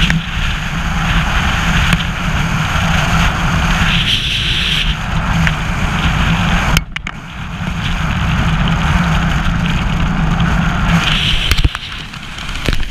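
Wind rushing and buffeting over a body-worn action camera's microphone under an open parachute canopy, swelling and easing in gusts, with a sharp knock and brief dip about seven seconds in and another knock near the end.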